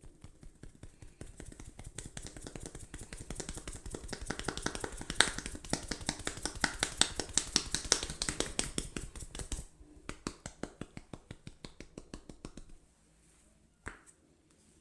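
Fast, even hand tapping and slapping of an Indian head massage, several strikes a second. It grows loudest midway, then softens and stops a couple of seconds before the end, with one last sharp click.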